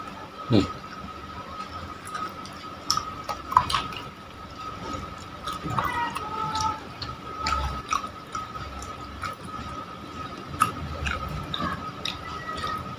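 Wet, sticky clicks and squelches of raw fish flesh and skin being pulled and torn apart by hand, in irregular small bursts.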